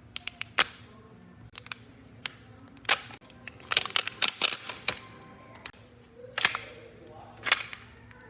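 Plastic wrapping of an L.O.L. Surprise ball crinkling and tearing as it is unwrapped: irregular sharp crackles, thickest about halfway through.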